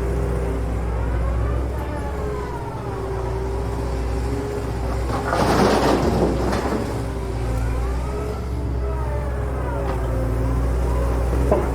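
Excavator's diesel engine running steadily, its pitch rising and falling twice as it works. A loud rush of noise comes about five seconds in and lasts a second or two.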